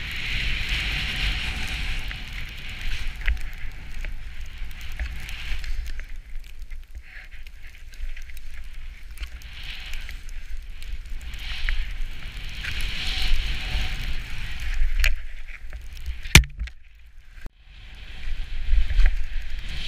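Skis turning through deep powder snow: a hiss that swells and fades with each turn, over a low rumble of wind buffeting the camera microphone. A sharp click comes about 16 seconds in, followed by a short quieter spell before the hiss returns.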